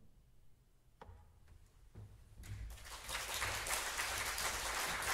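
Audience applause in a concert hall, breaking out about two and a half seconds in after a quiet pause with a faint knock or two, then staying loud and steady.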